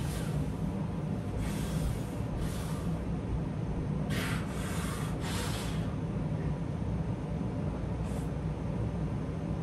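Heavy rhythmic breathing of a man pressing dumbbells: short sharp breaths in and out with the reps, several close together in the first six seconds and one more near the end, over a steady low hum.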